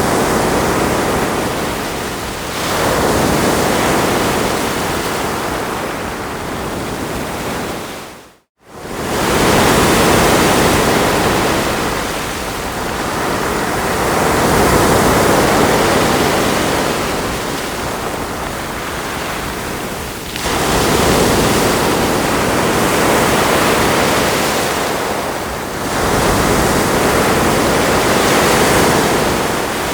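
Ocean waves breaking and washing onto a shore, the surf swelling and easing every few seconds. About a third of the way in, the sound fades out to near silence for a moment and then comes straight back.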